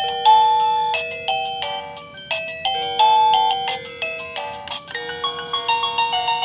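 Liztek wireless doorbell receiver playing one of its built-in ringtone melodies, a simple electronic tune of clear notes over held lower tones. About five seconds in, the tune changes to quicker, shorter notes.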